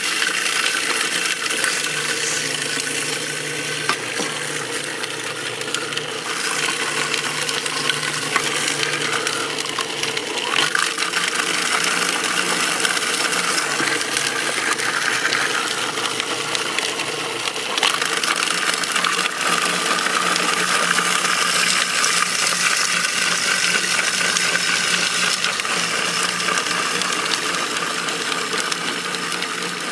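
Food processor motor running steadily at speed, its blade churning whole rotten eggs, shells included, into liquid.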